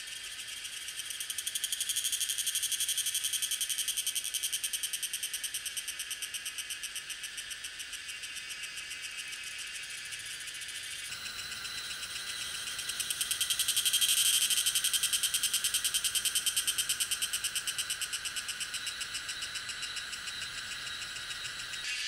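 Tanna viridis cicadas singing: a rapid, pulsing high-pitched buzz that swells and then eases off. About halfway through it changes abruptly and a second call swells louder before fading again.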